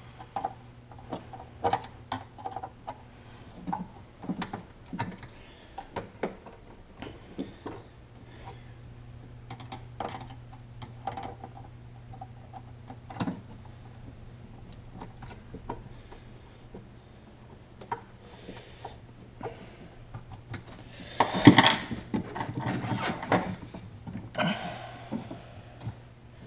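Scattered light metallic clicks and knocks of a screwdriver working hose clamps inside a jet ski's engine compartment, with a louder clatter of handling a little over 20 seconds in. A steady low hum runs underneath.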